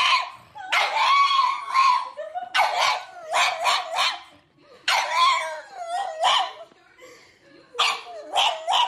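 A small black pug giving a run of high-pitched yips and howling calls, coming in bursts of several short calls at a time with brief pauses between.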